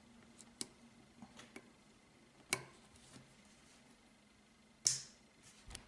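Small metal and plastic clicks and taps as the rear back cap is worked into a Smith & Wesson M&P pistol slide. A few light ticks come first, then a sharper click about two and a half seconds in, and the loudest click near the end.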